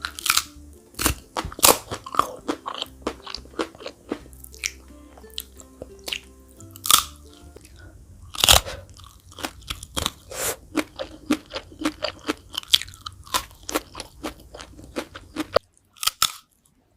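Close-miked biting and chewing of fried chicken feet: many sharp, irregular crunches, over soft background music that stops about a second before the end.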